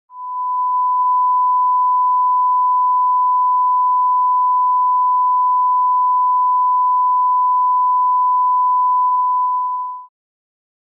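Line-up test tone: a single pure, steady beep of the kind laid down with colour bars to set audio levels. It fades in over about a second, holds level, then fades out and stops shortly before the end.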